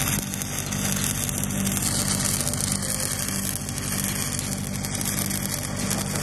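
Stick-welding arc of an E8010 cellulosic pipeline electrode running the cap pass on a steel pipe joint: a continuous crackling hiss. An engine-driven welder runs steadily underneath.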